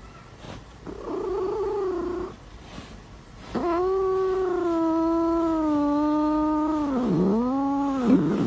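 Angry cat yowling: a short yowl about a second in, then a long drawn-out yowl that sinks slowly in pitch and dips twice near the end.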